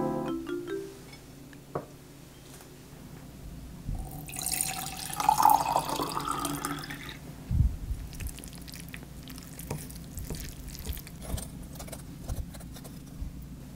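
Water poured from a bottle into a drinking glass for about three seconds, its pitch rising as the glass fills. Then a dull knock, and light clicks and scrapes as pasta is twirled on a wooden fork in a ceramic bowl.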